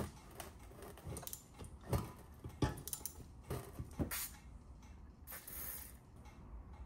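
Hand ratchet with a socket extension clicking in short, irregular strokes as it works a stuck bolt on a turbocharger and exhaust manifold; the bolt is not coming free.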